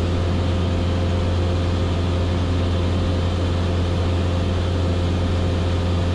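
Cessna 172S's four-cylinder Lycoming IO-360 engine and propeller droning steadily in flight, heard from inside the cabin.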